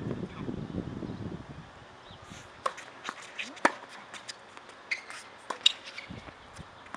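Tennis rally on an outdoor hard court: the sharp pops of a tennis ball struck by racquets and bouncing, with shoe scuffs, coming thick from about two and a half seconds in, the loudest a little past the middle. Low wind rumble on the microphone over the first second and a half.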